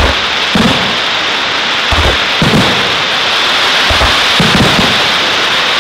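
Aerial fireworks display: a run of deep booms from shells launching and bursting, several coming in pairs about half a second apart, over a steady loud hiss from the burning effects.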